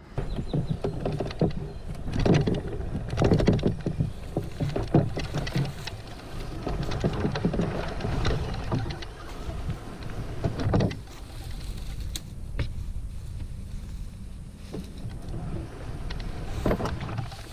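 Old Town Camper canoe hull scraping and sliding over dead grass and reeds as it is pushed off the bank toward the water, with irregular crackling and rustling of dry grass, heaviest in the first eleven seconds. A low wind rumble on the microphone runs underneath.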